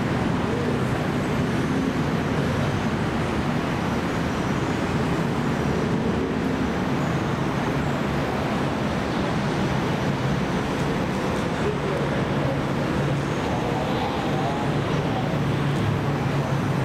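Steady city traffic noise mixed with the low hum of a rubber-tyred Bombardier Innovia APM 300 people mover rolling slowly along its concrete guideway into the station. The hum grows a little stronger in the last few seconds as the car comes closer.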